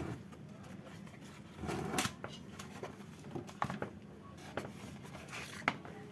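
Scattered clicks and knocks of tools and parts being handled, with a louder clatter about two seconds in.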